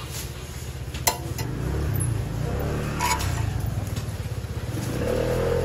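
A small engine running close by, its pitch rising a little near the end, over sharp clicks of metal tongs on the hotteok griddle about one and three seconds in.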